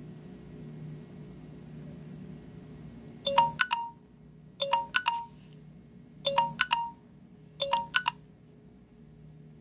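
Samsung Gear S3 smartwatch's timer alarm sounding as the countdown runs out: four short bursts of quick chime notes, about one every 1.4 seconds, starting about three seconds in and stopping after the fourth as the alarm is dismissed.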